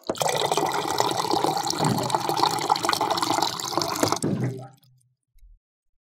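Water dispenser running, water pouring into a container for about four seconds and then tailing off. A faint low thump follows about a second later.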